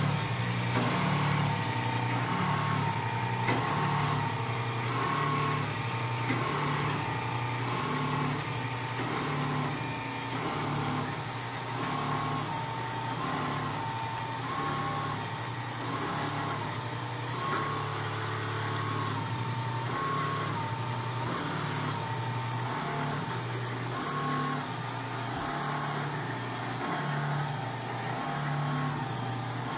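Richpeace single-head computerized quilting machine running, its motors and stitching head making a steady mechanical hum whose pitch steps up and down about once a second.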